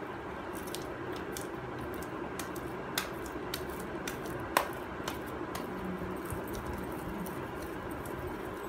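Hands kneading damp fuller's earth (multani mitti) clay in a plastic bowl: soft handling noise with scattered sharp clicks, the loudest about four and a half seconds in, over a steady background hum.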